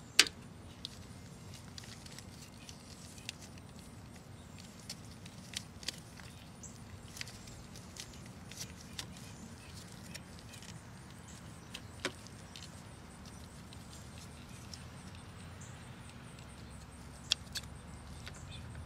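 Scattered light plastic clicks and taps as a 9007 halogen headlight bulb and its plastic base are handled in gloved hands, with the sharpest click just after the start. Under them runs a steady low background rumble.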